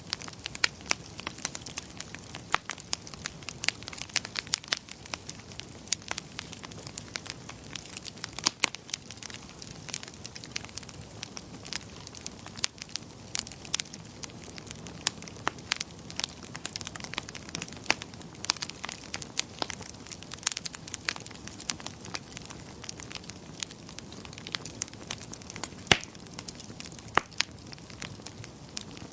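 Wood fire crackling in a fireplace: irregular sharp pops and snaps over a low steady hiss.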